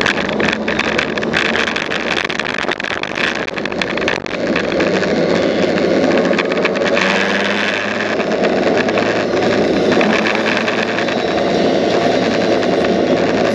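Motorcycle engine running and road and wind noise on a bike-mounted camera while riding along at road speed, a steady loud rush.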